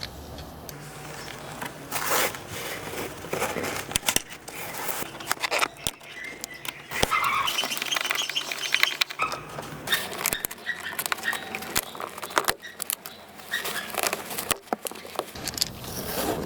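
Hand work on a car's interior trim: irregular sharp clicks and knocks of plastic parts and tools, with rustling in between.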